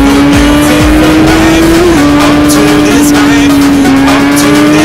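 Loud background music with one long held note that slowly rises in pitch. Deep, falling drum hits repeat and stop about a second in.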